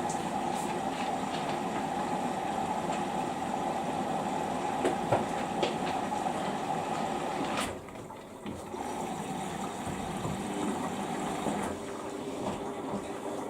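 Samsung EcoBubble washing machine filling with water: a steady rush of water coming in, with a few clicks about five seconds in. The sound drops sharply just under eight seconds in, then carries on more quietly.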